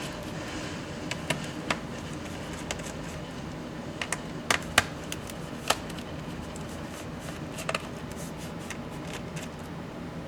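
Hands and small tools working on a Dell Inspiron 15 7586 2-in-1 laptop being taken apart: scattered sharp clicks and taps of plastic and metal, the loudest cluster about halfway through, over a steady low hum.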